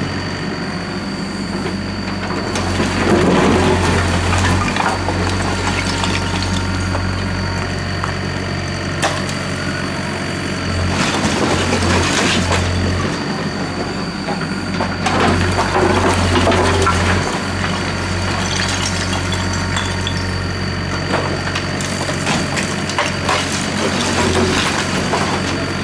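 Doosan DX55W wheeled excavator's diesel engine running under hydraulic load, its hum swelling and easing. Bricks and broken stone clatter and rumble out of the bucket into a steel dump truck bed several times.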